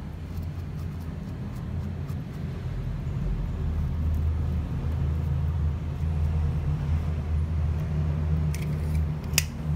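A steady low mechanical hum, like a motor running in the background, with a few sharp clicks near the end.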